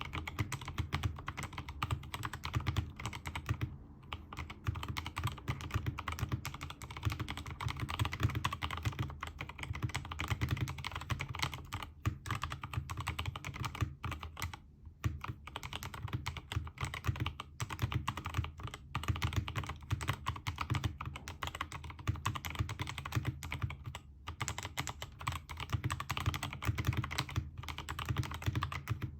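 Continuous typing on a Keychron K2 v2 mechanical keyboard fitted with Gazzew Boba U4T tactile switches lubed with Krytox 205g0, PBT XDA-profile keycaps and a silicone-filled aluminium case. It is a dense, quick run of keystrokes, with short pauses about four, fifteen and twenty-four seconds in.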